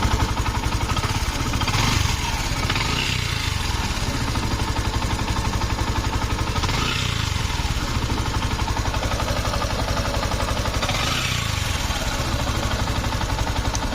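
Yamaha FZS V3's single-cylinder engine running steadily, swelling briefly three times as if given light throttle. The engine had a noise problem for which its cam, rocker arm and cam chain were replaced and the tappets adjusted.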